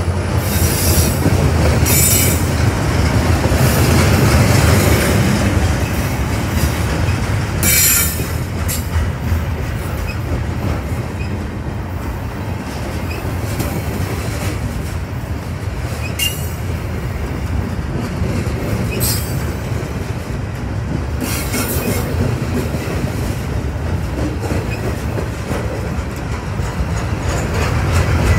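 Loaded freight train of heavy flatcars rolling past: a steady rumble and clatter of steel wheels on rail, with several brief high-pitched wheel squeals.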